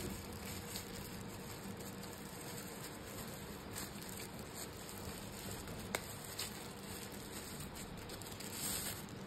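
Faint rustling and crinkling of a thin white protective wrapper being pulled and twisted off a selfie stick, with a few light clicks over a steady background hiss.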